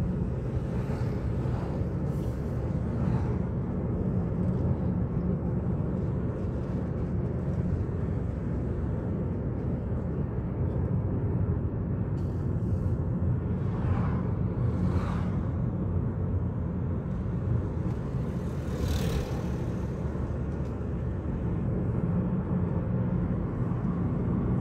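Steady engine and road noise inside a moving car's cabin, with a few brief hisses about halfway through and again about three-quarters through.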